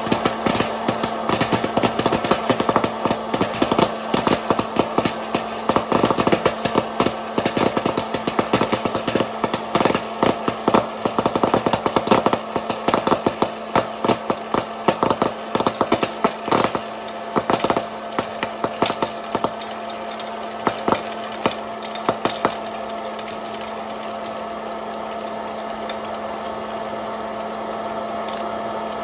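Popcorn kernels popping in quick, dense succession over the steady hum of a running popcorn machine's motor. The pops thin out past the middle and have all but stopped near the end, the sign that the batch is nearly fully popped.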